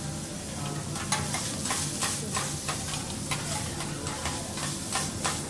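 Food sizzling on a steel teppanyaki griddle, with a rapid run of sharp clicks and scrapes of metal spatulas against the hot plate from about a second in until near the end.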